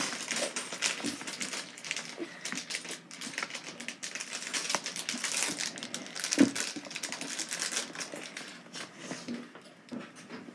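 Fingers scratching, tapping and rubbing on the tight cardboard lid of an iPad box in a dense run of small clicks and scrapes as someone struggles to work it open, with one louder knock about six seconds in.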